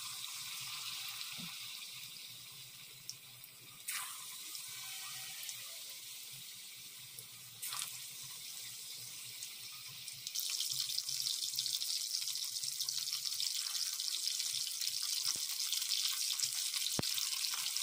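Chicken kofta balls frying in hot oil in a stainless steel kadai: a steady hissing sizzle that flares briefly about 4 and 8 seconds in as more koftas are slipped into the oil, and grows louder from about 10 seconds in.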